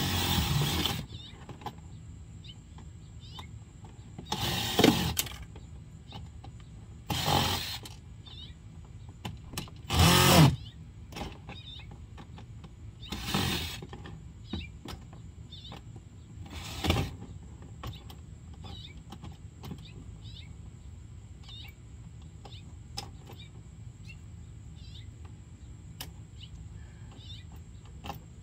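A small electric power tool run in about six short bursts of under a second each, the last of them about two-thirds of the way through, with faint chirping between them.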